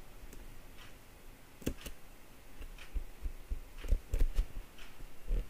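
A handful of scattered key taps on a computer keyboard, short clicks with a dull knock beneath, with a quick run of four about four seconds in.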